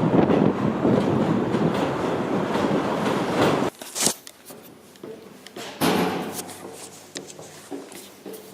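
Subway train running, heard from inside the car as a loud steady noise that cuts off abruptly about a third of the way in. After that come quieter clatter and knocks, with one brief louder swell of noise.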